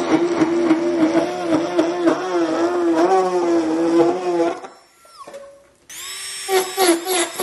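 Handheld rotary tool drilling small holes through a thin plastic cake container, its motor whine wavering as the bit bites and eases. About five seconds in it winds down and briefly stops, then runs again in short pulses as a cone-shaped grinding bit shaves the edge of the cut-out hole.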